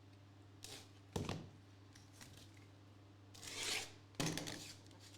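Trading-card packaging being handled and opened: a sharp knock about a second in, a rustling, tearing sound a little after three seconds, and another knock just after four seconds, over a low steady electrical hum.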